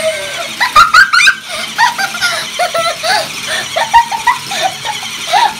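Children laughing and giggling in repeated short bursts.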